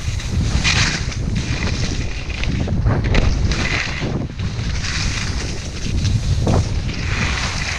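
Wind buffeting the microphone of a skier's camera during a fast descent, with bursts of hiss from the skis scraping and spraying snow on each turn.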